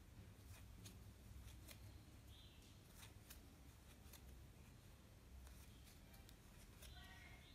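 Near silence: faint, scattered clicks and rustles of a crochet hook and yarn being worked by hand, over a low steady hum.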